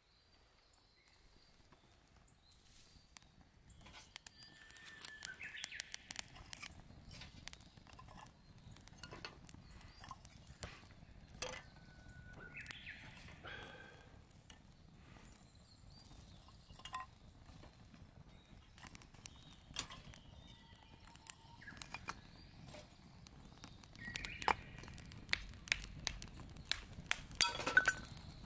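Campfire of dry conifer twigs and needles catching in a small metal fire stand, crackling with irregular sharp pops and snaps. The crackle grows busier and louder near the end as the flames take hold.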